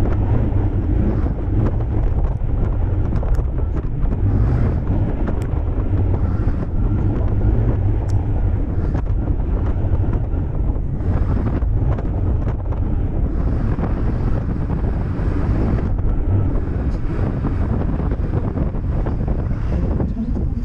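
Steady wind rumble on the microphone of a moving Yamaha Cygnus 125 scooter, with the scooter's engine and road noise running underneath.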